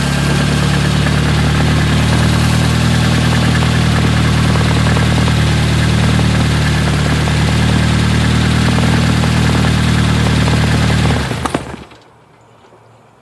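Turbocharged Nissan KA24DET 2.4-litre four-cylinder engine running steadily, loud, then shut off about eleven seconds in and dying away within a second. The owner suspects the engine has rod knock.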